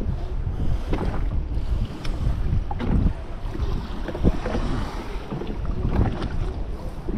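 Wind buffeting the microphone in a stiff breeze, with choppy water slapping and splashing against a jetski's hull.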